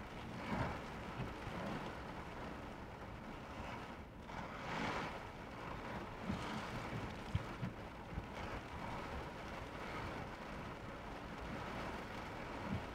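Heavy rain beating on a car, heard from inside the cabin: a steady hiss with scattered low thumps and a louder swish about five seconds in.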